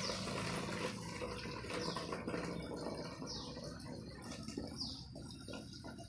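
Just-boiled water poured in a stream from a steel bowl into a plastic water bottle, filling it.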